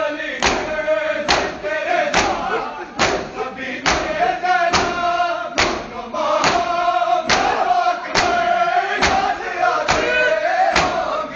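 Crowd of men doing matam, slapping their bare chests in unison, one sharp strike a little faster than once a second. Between the blows a chorus of male voices chants a noha (lament) in time with them.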